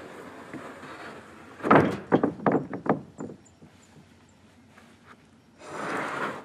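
Knocks on timber: one heavy thud about two seconds in, followed by a quick run of smaller knocks. A short rushing, scraping noise comes near the end.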